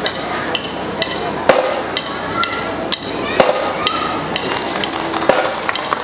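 Repeated sharp knocks, about one a second, each with a short ringing tail, over a steady background hubbub.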